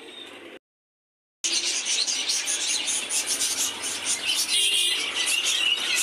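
A flock of caged budgerigars chirping and chattering loudly and without a break, after about a second of dead silence near the start.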